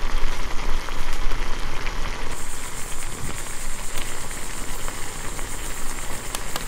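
Wood fire burning in a steel fire pit under a pot of water heating for a crab boil: a dense, steady hiss with scattered crackles.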